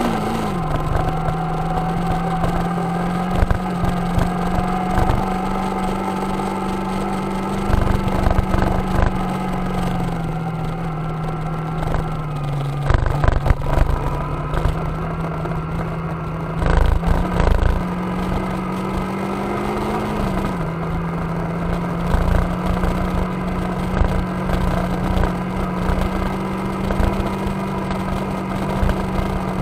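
Motorcycle engine running at a steady cruising pace, its note dropping suddenly just at the start and again about twenty seconds in. Short knocks and rattles come now and then from the bike riding over a rough gravel road.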